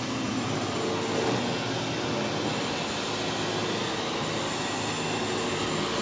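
Upright vacuum cleaner running steadily as it is pushed over carpet.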